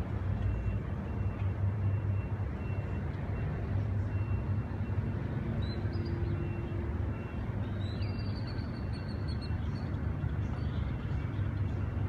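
Steady low outdoor rumble, with a few short high chirps from a bird about six seconds in and again around eight seconds in.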